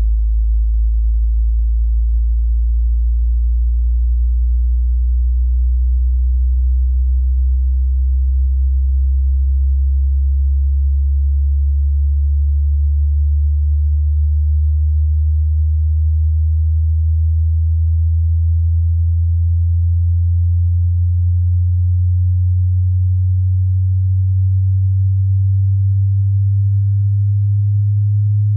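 A pure sine test tone in the deep bass, gliding slowly and steadily upward in pitch: a hearing-test frequency sweep from low to high.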